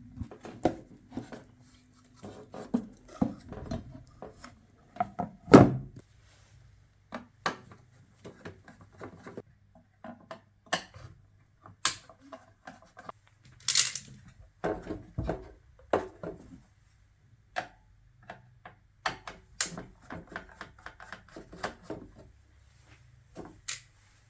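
Irregular clicks, taps and knocks of tools and circuit-board parts being handled on a workbench during electronics repair, a few sharper than the rest, over a faint steady low hum.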